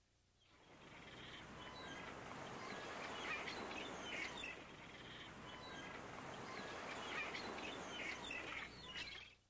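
Birds chirping, many short high calls over a steady rushing noise, fading in at the start and cutting off abruptly near the end.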